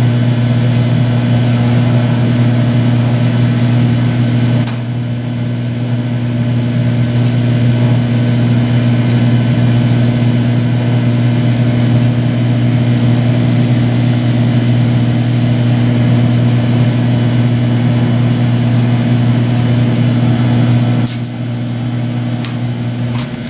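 Steady low hum and hiss of the gas-and-air burner flame heating the end of a glass tube, with a slight drop in level about five seconds in and again near the end.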